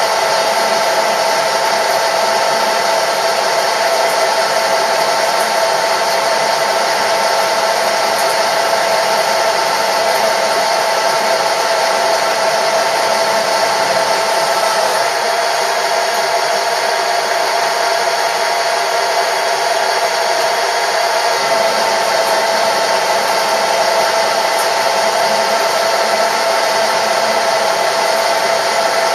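Metalworking machine tool running steadily while machining a part, its motor giving a steady whine over a constant hiss.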